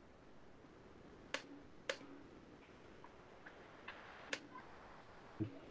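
Computer mouse clicking a few times, single sharp clicks with fainter ticks between them, over quiet room tone.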